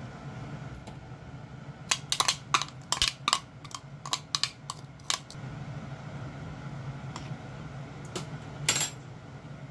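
A quick irregular run of light kitchen clicks and knocks, about a dozen in three seconds, then one more near the end, over a steady low hum.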